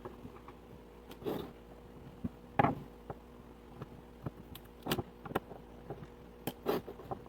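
Screws being taken out of a small plastic portable speaker's case with a screwdriver: scattered clicks and short scrapes of the tool and plastic, a few seconds apart, over a faint steady hum.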